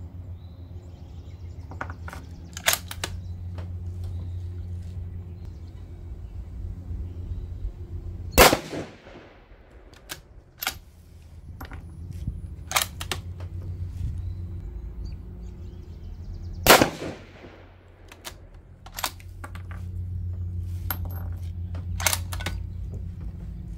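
Two rifle shots from a 6mm ARC Savage 110, about eight seconds apart, each trailing off over roughly a second. Fainter sharp cracks and clacks come in between, over a steady low hum.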